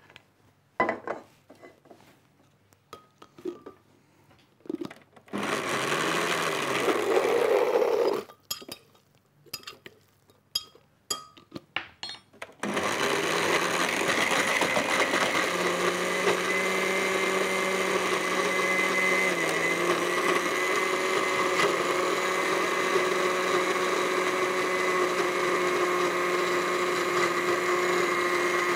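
Countertop electric blender blending a thick green herb chutney of dill, green pepper and garlic with a little olive oil. First come clicks and knocks, then a short run of about three seconds and more clicks. From about halfway on the motor runs steadily, dipping slightly in pitch once.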